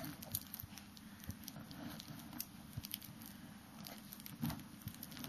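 Faint, irregular clicking and rattling of plastic beads on a hanging toy string as a baby grabs and tugs at them, with a slightly louder knock about four and a half seconds in.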